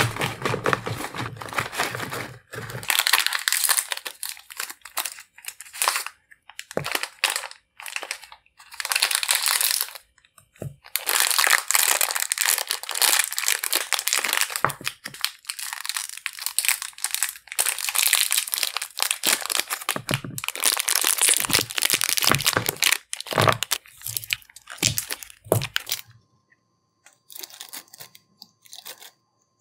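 Foil candy wrappers from Gushers and Fruit by the Foot packets crinkling and tearing in long stretches, with a few knocks on the table. Near the end it turns quiet, with soft peeling as a Fruit by the Foot strip is unrolled from its paper backing.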